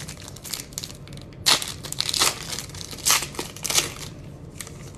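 Foil wrapper of a Bowman Platinum baseball card pack being torn open and crinkled by hand: a series of sharp crackling rustles, the loudest about a second and a half in.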